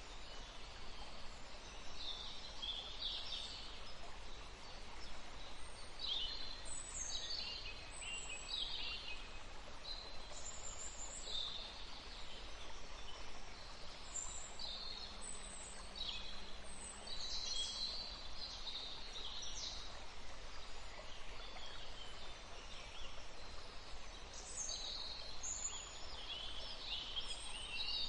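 Several birds singing and chirping, a quick run of short high chirps and whistles, over a faint steady background hiss.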